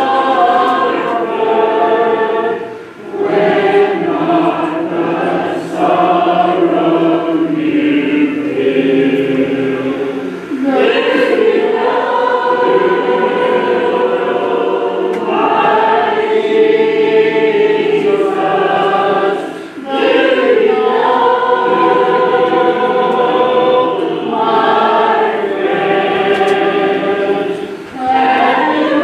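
Congregation singing a hymn a cappella, in long held phrases broken by short breaths about every seven to nine seconds: the invitation song at the close of the sermon.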